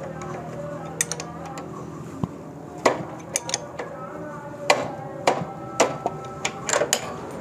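A spanner clicking and clinking on the nut and steel magneto rotor of a Honda CD70 engine as the rotor is tightened back onto the crankshaft: irregular sharp metallic clicks, some with a short ring.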